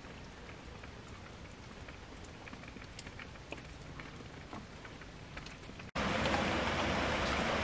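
Steady light rain, an even hiss dotted with scattered drip ticks. About six seconds in it cuts abruptly to much louder, denser rain.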